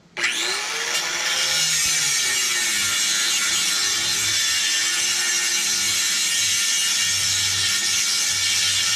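Electric angle grinder switched on, its whine rising as it spins up, then grinding metal with a loud, steady noise.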